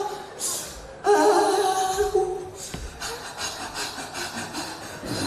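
A man singing a short held phrase about a second in, then softer voices.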